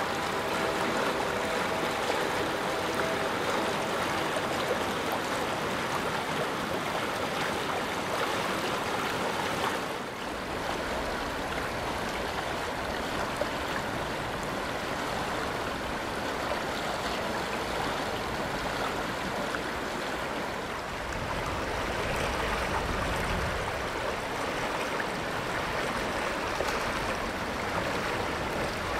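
Shallow creek water rushing over a gravel bed: a steady rushing hiss, with a faint steady hum fading out in the first few seconds.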